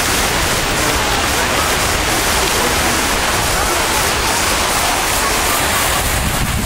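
Large ornamental fountain's water cannons and jets spraying into the pool: a loud, steady rush of falling and splashing water.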